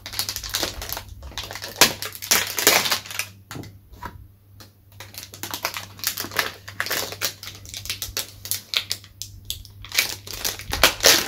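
Cellophane shrink-wrap on a cardboard box set being torn and peeled off by hand, crinkling and crackling in irregular bursts, with a quieter stretch about four seconds in.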